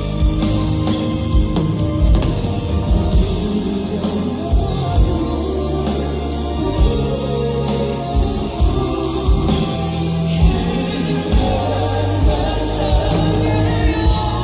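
Live band music: drum kit, bass and guitar playing a ballad's passage with steady drum hits and a sustained bass line, with some vocals in the mix but no sung lyrics.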